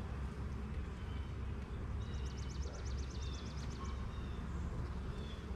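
A small songbird's rapid trill of quick, evenly spaced high notes about two seconds in, lasting nearly two seconds, over a steady low outdoor rumble.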